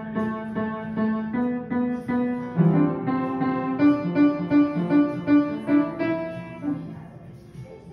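Upright piano played by a young child: single notes struck one after another, then one note struck over and over, two or three times a second. The notes die away near the end.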